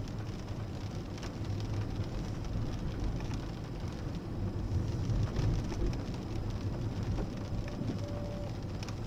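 Inside the cabin of a Mercedes-Benz car driving slowly on a wet road: a steady low rumble of engine and tyres under an even hiss of wet tarmac and rain, with a few faint ticks.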